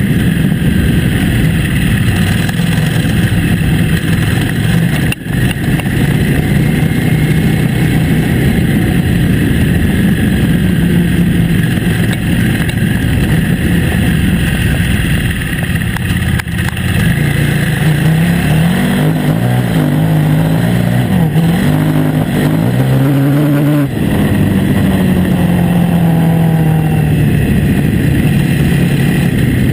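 KTM 950 Adventure S's V-twin engine running under way on a gravel track, over a steady rush of wind and tyre noise. About two-thirds of the way in the engine note climbs several times in quick succession, briefly drops off, then settles and slowly falls.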